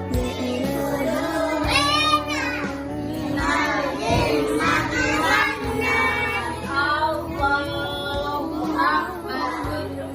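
Children singing along to backing music. Sustained music tones run throughout, and the sung phrases come in about two seconds in.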